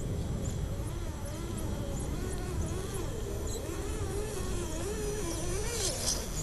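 Axial SCX10 RC crawler's electric motor and gears whining, the pitch wavering up and down as throttle and load change on the gravel. Near the end, gravel crunches and ticks under the tyres as it passes close.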